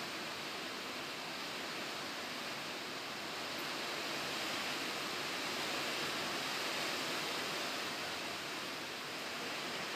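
Steady rushing hiss with no clear pitch or rhythm, swelling a little in the middle.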